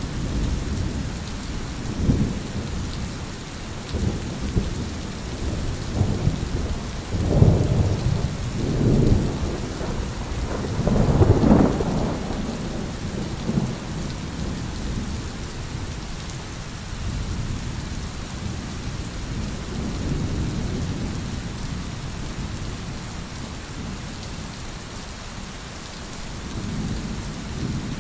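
Thunder rumbling on and off over steady rain. The rumbling swells loudest about seven to nine seconds in and again around eleven to twelve seconds in, then settles back to a low roll.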